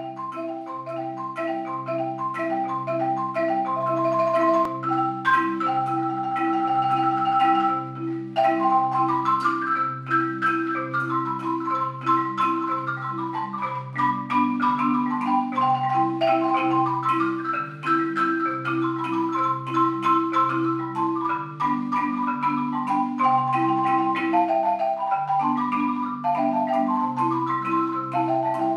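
Marimba duo playing a traditional Guanacaste tune on a concert marimba: low bass notes in an even beat under a moving melody of quicker, higher notes.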